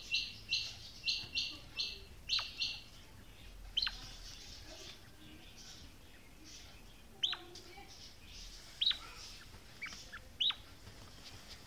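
Female quail calling: a quick run of about nine short, harsh, high notes in the first three seconds. After it come four or five sharp chirps, spaced seconds apart, each falling steeply in pitch.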